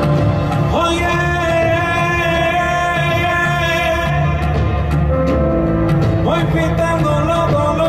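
Live band playing a slow song's instrumental intro. A sustained melody line of long held notes slides up into pitch about a second in and again near the end, over a low bass.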